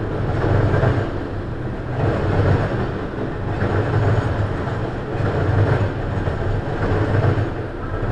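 Canadian National freight train of tank cars rolling past, steel wheels rumbling and clacking on the rails. The sound swells and eases about every second and a half.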